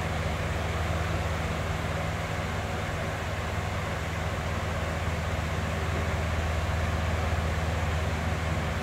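Box fan running steadily: a constant rush of air over a deep, low hum, with no change in speed.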